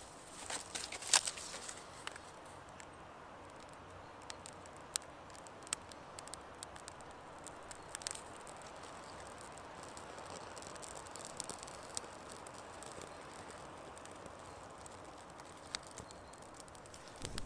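Birch bark being handled and catching fire as a small campfire is lit: scattered sharp snaps and crackles over a faint steady hiss, with a cluster of louder clicks in the first couple of seconds.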